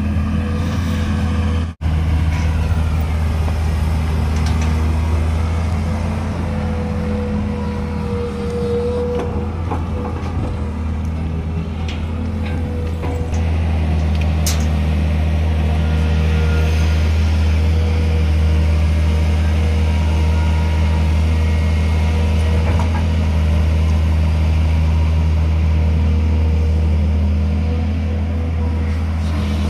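Tata Hitachi hydraulic excavator's diesel engine running steadily as it digs and swings, tipping soil into a tractor trolley.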